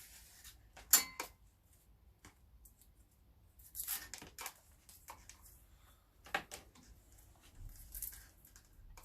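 Tough plastic sheathing on copper cable being handled and torn away during stripping: scattered clicks and short tearing, rustling noises, the sharpest a click about a second in.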